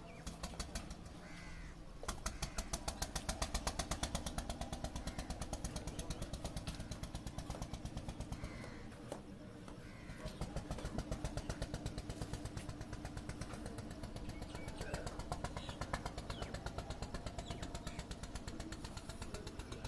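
A small engine running with a steady, rapid chug that dips briefly twice.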